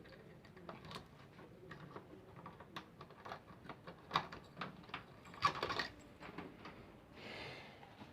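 Scattered small clicks and light rattles of a key and lock being worked to open a bird cage, irregular and quiet, with a few louder clicks around the middle and a brief soft rustle near the end.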